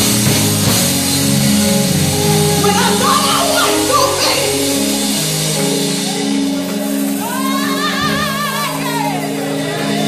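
Live church music: long sustained chords under a singing voice, with a wavering held note from about seven seconds in.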